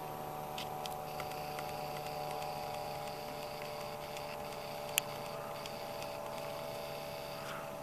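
A steady mechanical hum made of several steady tones, with a few faint ticks and one sharp click about five seconds in.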